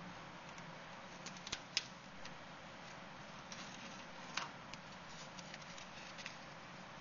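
A steady hiss of room tone with a few scattered light clicks and rustles, the sharpest about two seconds in and again in the middle.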